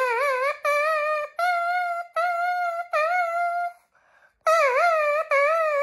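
Plastic drinking-straw double reed blown in a run of about seven short, reedy notes, each bending down and back up in pitch as the lips tighten and loosen on the cut tip. There is a short break about four seconds in.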